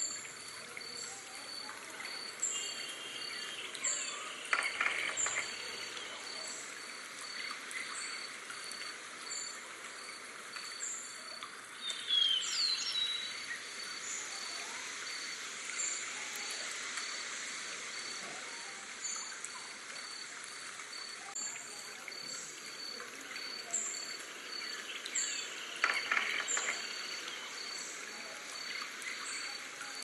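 Night forest ambience: a stream trickling steadily, under a high chirp that repeats about once a second and a faster, even pulsing. A few louder calls stand out: one about four seconds in, a gliding bird call about twelve seconds in, and another near the end.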